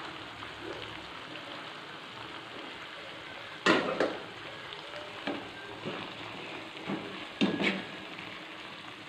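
Spaghetti and tomato sauce sizzling steadily in a frying pan while it is tossed with kitchen tongs and a metal spoon. Several sharp knocks of the utensils against the pan come in the second half, the loudest a little over a third of the way in.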